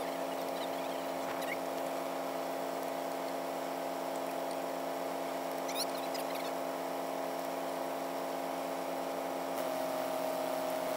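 A machine running steadily with a constant drone, a slightly higher tone joining near the end. Faint short high chirps about six seconds in.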